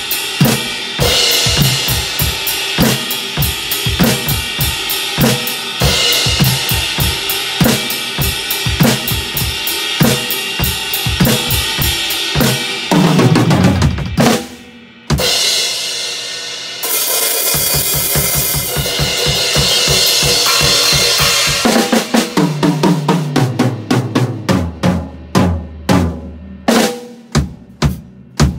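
Sonor acoustic drum kit played with sticks: a fast, steady beat on bass drum, snare and cymbals, broken about halfway by a fill sliding down the toms and a long crash-cymbal wash. Near the end a run of single hits steps down the toms to a close.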